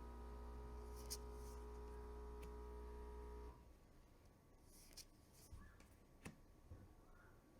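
Faint handling of tarot cards: a few soft taps and light clicks of card stock. A steady low hum cuts off suddenly about halfway through.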